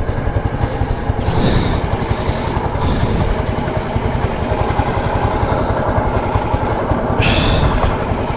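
Single-cylinder engine of a 9 hp go-kart running with rapid, even firing pulses, with two short bursts of hiss about a second in and near the end.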